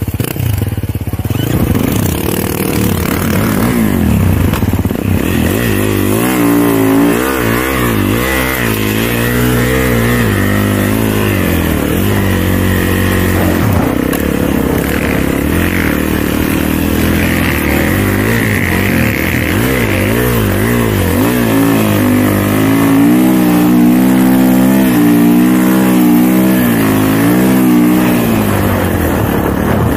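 Kawasaki dirt bike on a snowbike track conversion, its engine running hard under throttle as it climbs through snow. The engine note rises and falls with the throttle.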